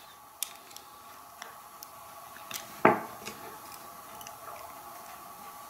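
Screwdriver and pliers prying at the plastic drive gear on a small blend-door actuator motor's shaft: scattered light clicks and scrapes, with one sharper click about three seconds in.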